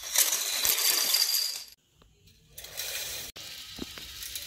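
A burst of clattering as plastic K'NEX pieces tumble onto a tile floor. After a short gap comes a quieter, steady rattle of a K'NEX coaster car rolling along its plastic track.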